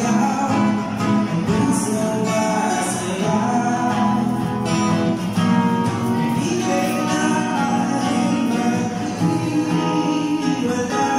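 Live acoustic performance: a singer singing a melody over a strummed acoustic guitar.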